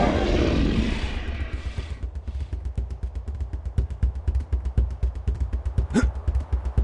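Comic 'losing' sound effect: a falling whoosh in the first two seconds, then a fast rattling sputter with low thuds, like a stalling motor, and a short squeak near the end.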